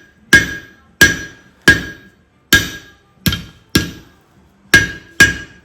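Blacksmith's hand hammer striking hot steel, about eight blows with a short pause a couple of seconds in, each blow ringing with a clear metallic tone that dies away.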